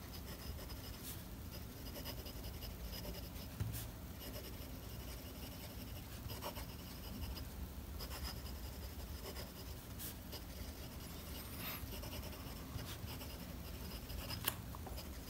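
Submarine 915 fountain pen nib scratching faintly across notepad paper as it writes, with a few faint ticks. The nib gives audible feedback: a little bit scratchy.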